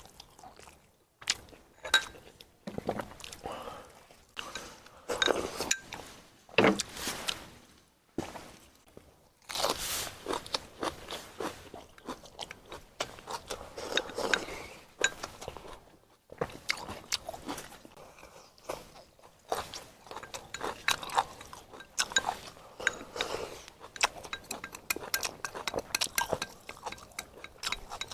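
A person eating: irregular crunchy bites and chewing, with the odd click of utensils on dishes.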